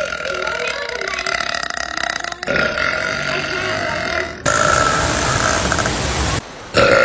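A woman's long, drawn-out burps, about four in a row, each cutting off abruptly into the next.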